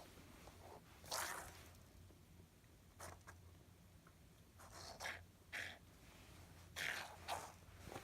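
A handful of short, faint rustling swishes and scrapes at irregular intervals, from an object being handled and passed back and forth between a person and a cat.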